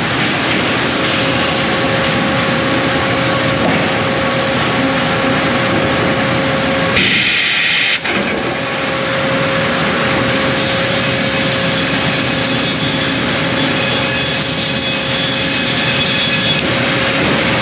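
Sawmill head rig with a big band saw running: loud, steady machinery noise with a constant hum. About seven seconds in there is a burst of hiss lasting about a second, and from about ten seconds in a thin high whine rides on top.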